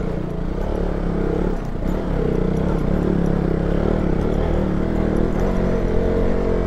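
KTM Duke 200's single-cylinder engine running at low, steady revs, heard from on board the bike as it picks its way along a rough dirt trail.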